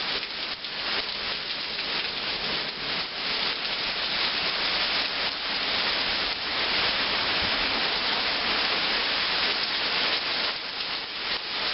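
Heavy rain pouring down in a violent storm, a steady, fairly loud hiss.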